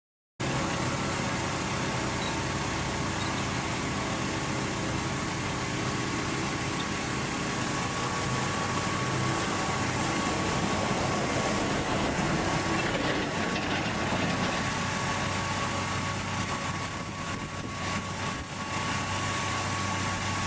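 Heavy road-construction machinery running steadily, a continuous engine drone with a thin, steady high tone over it.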